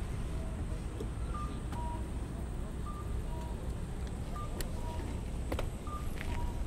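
Audible signal of a Japanese pedestrian crossing: short electronic two-note chirps, a higher note then a lower one, repeating about every second and a half, over a low steady traffic hum.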